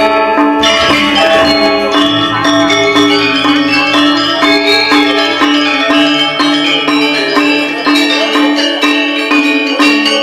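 Balinese gamelan ensemble playing a tabuh kreasi piece: bronze metallophones and gongs struck in quick ringing strokes over a steady low tone.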